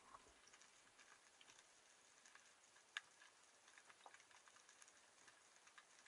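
Near silence underwater, with faint, irregular clicks and crackles scattered throughout and one sharper click about three seconds in.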